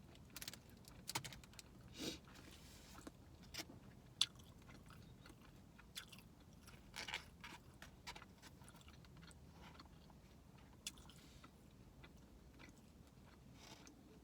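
Close-up mouth sounds of a person chewing a large bite of Panda Express chicken: scattered wet clicks and smacks, busiest in the first half, with a faint steady hum underneath.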